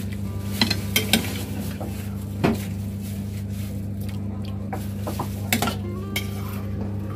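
A metal ladle stirs noodle soup in a large aluminium cooking pot, clinking and scraping against the pot's sides. There are a handful of sharp clinks, about a second in, again near two and a half seconds, and a few more after five and a half seconds, over a steady low hum.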